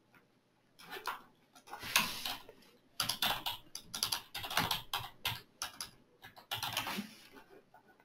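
Someone typing on a computer keyboard in irregular runs of keystrokes: a few about a second in, then a quick, denser run through the middle.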